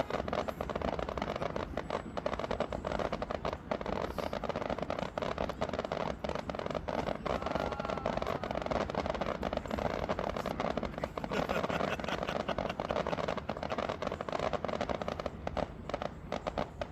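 Fireworks going off in a dense, continuous crackle of many rapid small pops.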